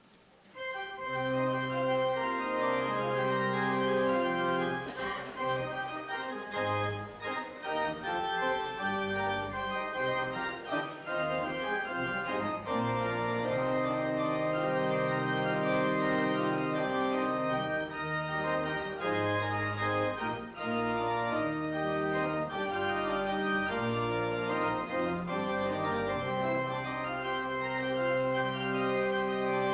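Organ starts playing about half a second in, then plays held chords that change every second or two.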